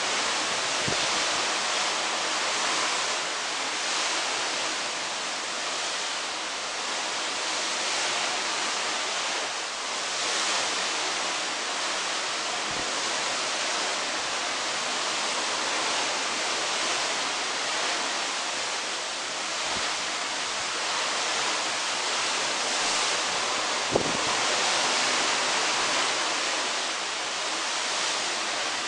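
Sea wash and wind heard from the balcony of a cruise ship at sea: a steady rushing noise with no breaks. There is a brief knock about 24 seconds in.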